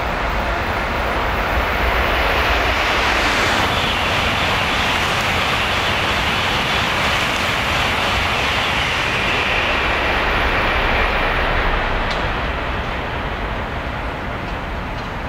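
Shinkansen train going by the platform: a loud rushing of air and wheels over a low rumble, building about two seconds in, holding for about ten seconds, then easing off.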